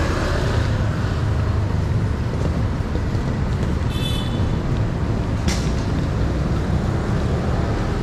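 Steady city street traffic noise with a low rumble. A short high squeak comes about four seconds in, and a sharp click about a second and a half later.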